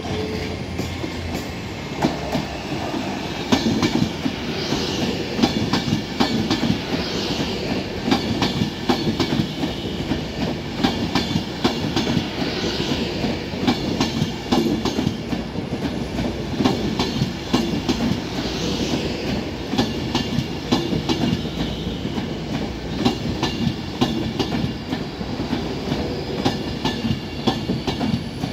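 Avanti West Coast Class 390 Pendolino electric train running past along the platform, its wheels giving a steady stream of clicks over the rail joints.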